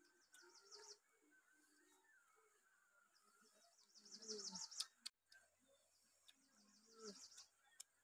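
Faint bird chirping: quick runs of short high chirps, once near the start and again, louder, around four seconds in.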